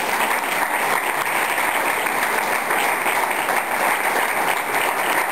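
An audience applauding steadily after a speech, many hands clapping at once in a dense patter.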